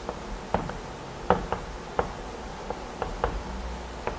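Chalk on a blackboard as characters are written by hand: a string of short, irregular taps and brief scrapes, a few per second.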